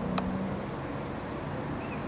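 Lexus IS-F's V8 engine running steadily at a distance, its low note fading slightly, with one sharp click a fraction of a second in.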